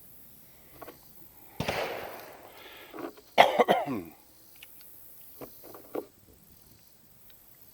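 A single sharp gunshot with a short echo tail, then, about two seconds later, a loud cough, followed by a few light clicks.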